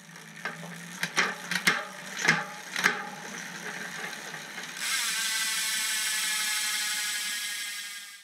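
Bicycle freewheel ratchet: several sharp separate clicks, then from about five seconds in a steady fast buzz that fades out at the end.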